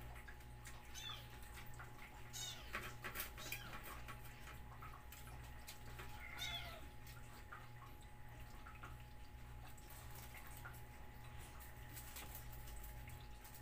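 Domestic cats meowing several times, the calls clustered in the first half and the longest, falling one about six seconds in, over a steady low hum.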